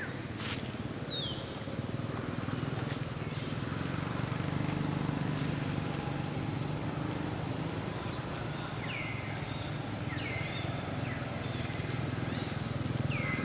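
Outdoor ambience: a steady low rumble with short, high chirps that fall in pitch, heard now and then, about four times.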